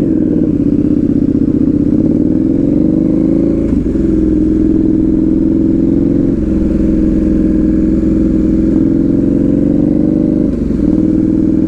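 Motorcycle with a loud exhaust pulling away and accelerating: the engine note rises for about four seconds, drops at a gear change, then runs on steadily with two more brief dips at further shifts.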